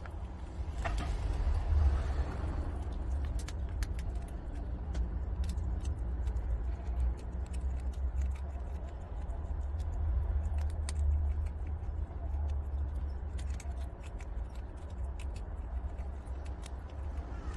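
Prairie dogs chewing dry donut-shaped small-animal treats: a scattered run of small crisp crunching clicks over a steady low rumble.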